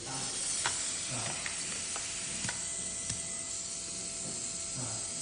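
Dental contra-angle handpiece running, spinning its bur: a steady high hiss with faint steady whining tones above it.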